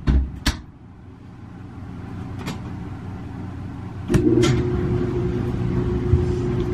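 A few light clicks of clothes being handled. About four seconds in, a laundry machine switches on with a click and settles into a steady motor hum with a held tone.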